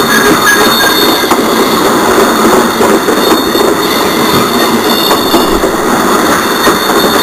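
Model railroad freight cars rolling steadily past on the track, a continuous noise of small wheels running on rail.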